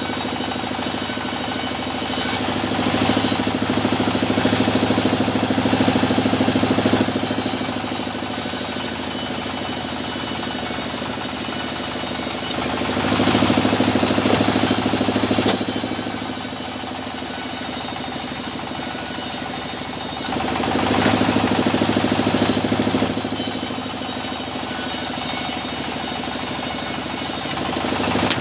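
Sawmill running steadily, with three louder stretches of a few seconds each as the saw cuts through small mahogany logs.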